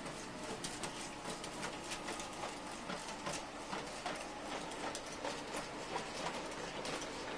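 Busy, irregular clicking and clattering of small moving toy mechanisms, several clicks a second.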